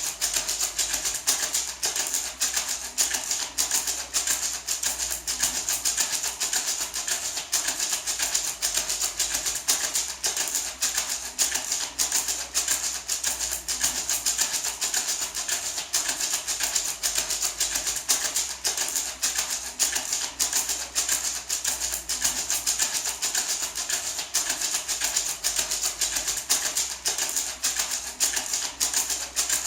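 A small gourd maraca shaken in a steady, even rhythm, its seeds rattling in quick repeated swishes.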